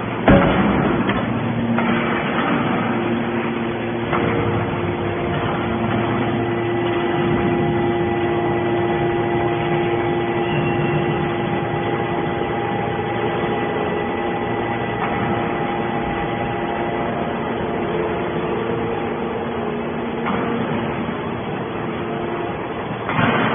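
Hydraulic scrap metal baler running: a steady machine hum with several held tones over a noisy clatter, with a sharp knock right at the start and another surge of noise near the end.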